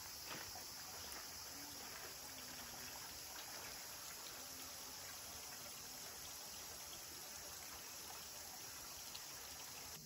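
Thin streams of water trickling from a bamboo cover down the face of a stone basin, a faint steady splashing with a high, even hiss.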